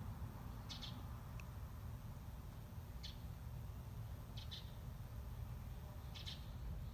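Eurasian tree sparrow chirping: four short bursts of high chirps, some in quick pairs, spaced a second and a half to two seconds apart, over a steady low hum.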